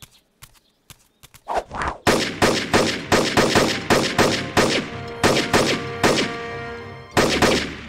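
Cartoon rifle fired in a rapid string of gunshots, about three a second, starting about a second and a half in, with a short pause and two more shots near the end.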